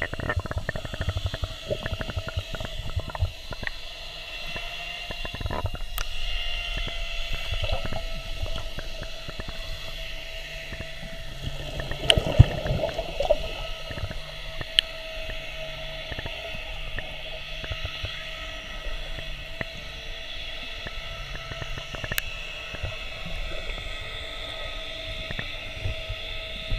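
Underwater sound picked up by a camera in its housing: a steady muffled low rumble with faint held tones over it, broken by a few sharp clicks and a brief louder jumble of noise about midway.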